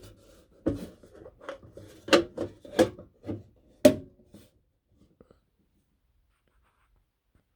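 Hands working the fire alarm panel's enclosure: a string of about nine separate knocks and clicks over roughly four seconds, the loudest about four seconds in.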